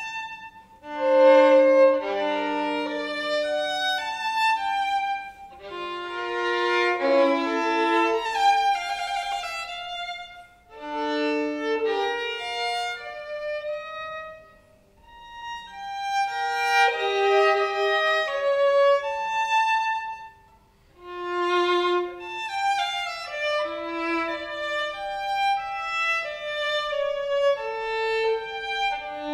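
A violin played with the bow in a fast, busy passage, at times with several notes sounding together. It falls briefly quiet about 15 seconds in and again about 21 seconds in, between phrases.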